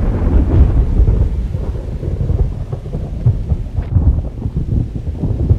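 Thunderstorm: a deep, continuous rumble that swells and eases, with rain.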